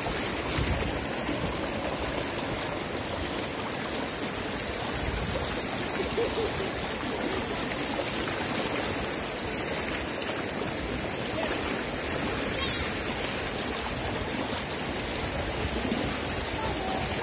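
Shallow rocky river rushing over stones: a steady wash of running water.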